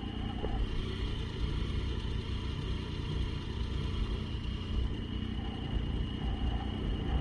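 Triumph motorcycle engine idling steadily while the bike stands still: a low, even rumble.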